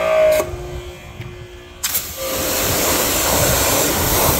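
Water spraying from a hose spray wand onto concrete: a short loud burst right at the start, then a click about two seconds in and a steady loud hiss of spray.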